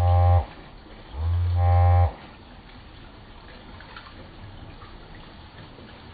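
Two long, low, pitched calls, each rising in pitch at the start. The first cuts off about half a second in, and the second lasts about a second. Faint steady background noise follows.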